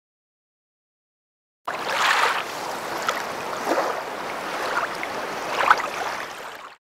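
Rushing, splashy sound effect like running water or surf for an animated logo reveal. It starts suddenly about two seconds in, swells a few times, and cuts off abruptly near the end.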